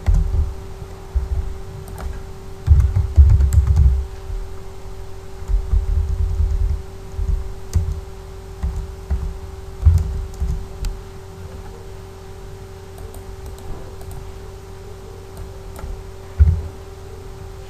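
Typing on a computer keyboard in irregular bursts, the keystrokes coming through mostly as dull low thumps with a few sharper clicks, over a steady hum.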